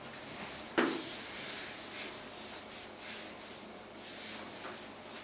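A whiteboard eraser rubbing across the board in short wiping strokes, with a sharp knock about a second in.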